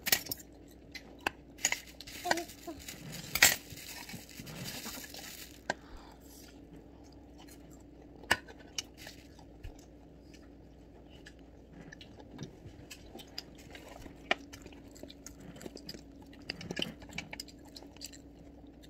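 Raw cucumber being bitten and chewed with a wet crunch, mixed with sharp clicks and clinks of utensils against stainless steel food trays.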